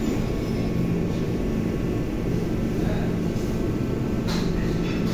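Steady low rumble and hum of commercial kitchen ventilation machinery, with a brief clink or knock about four seconds in.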